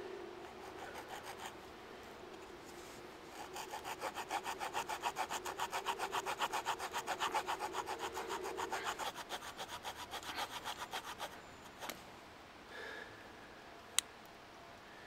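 Small wood saw of a Swiss Army knife cutting into a forked wooden branch with quick back-and-forth strokes. A few light strokes come first, then a steady run of about five strokes a second that stops about eleven seconds in. A single sharp click near the end.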